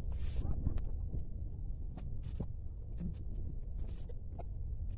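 Hands rubbing a baby's back during a massage: a few short soft swishes close to the microphone, over a steady low rumble.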